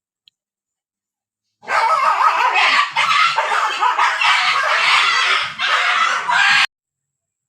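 Dogs fighting: a loud, dense tangle of animal noise starting about a second and a half in, lasting about five seconds and cutting off abruptly.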